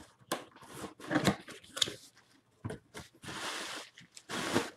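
A cardboard shipping box handled and opened by hand: a run of short crinkles and scrapes of cardboard flaps, with a longer scraping rub just past three seconds in as the boxed helmet inside is slid out against the cardboard.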